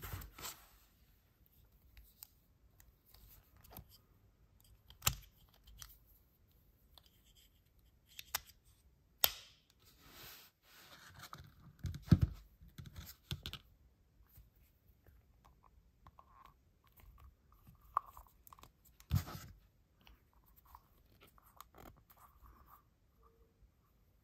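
Hands handling a soft silicone earbud case cover and a white plastic AirPods-style charging case: scattered quiet rubbing, clicks and taps, with a few sharper knocks, the loudest around the middle and again about three-quarters of the way through.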